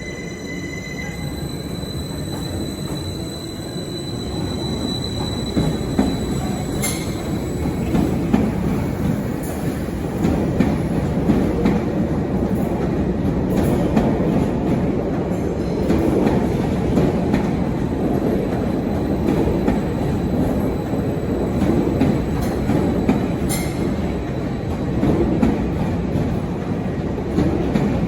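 Passenger train moving over the station tracks, its wheels clicking over rail joints and points, growing louder over the first several seconds. A thin high tone in the first few seconds fades away.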